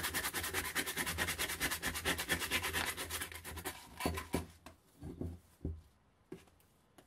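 Hand sanding of a threaded metal tube from a German WWII mortar with abrasive paper on a sanding block: quick, even back-and-forth rubbing strokes. The strokes fade out a little over halfway through, and a few light separate knocks follow.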